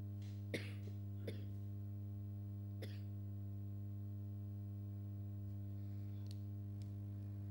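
Steady low electrical hum with a stack of higher tones above it. A few brief sharp noises come through it: one about half a second in, one just over a second in, one near three seconds, and fainter ones later.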